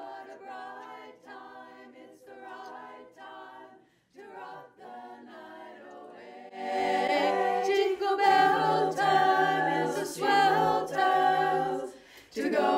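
A cappella group of voices singing a Christmas song in close harmony, quiet and sparse at first, then fuller and louder with a low bass part from about six and a half seconds in.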